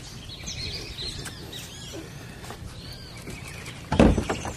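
Outdoor birdsong: many short, quick chirps and whistled calls, with a single loud thump about four seconds in.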